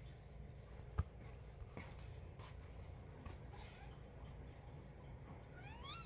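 Quiet room with two house cats moving about on a hard floor: a few faint clicks, the sharpest about a second in. Near the end comes a short, high, rising chirp.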